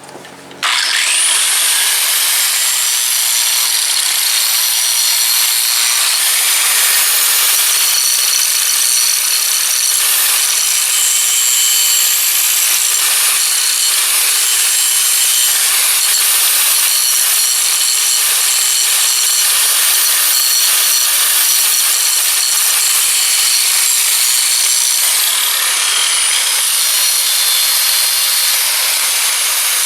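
Large angle grinder spinning up and grinding weld and hard steel off skid steer bucket teeth: a steady high whine over harsh grinding noise. The whine dips briefly near the end, then recovers.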